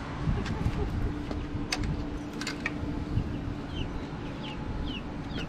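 Young chicks peeping faintly, a few short chirps in the second half, with a few sharp clicks about two seconds in as the wooden coop door is opened.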